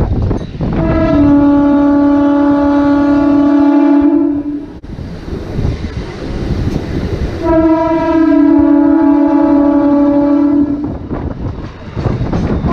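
Electric suburban local (EMU) train horn sounding two long blasts of about three and a half seconds each, the pitch dropping slightly just after each begins, over the running rumble and wind of the moving train heard from its open doorway.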